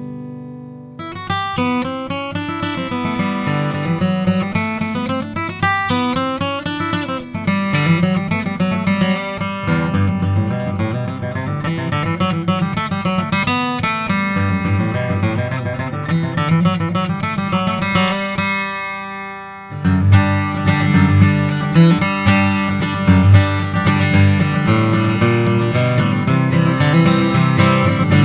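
Martin DCPA5K dreadnought cutaway acoustic guitar, with a solid Sitka spruce top and koa-patterned laminate back and sides, being played: single-note lines mixed with chords, rich in the bass. About two-thirds through, a chord is left ringing and fades, then a louder, fuller strummed passage follows.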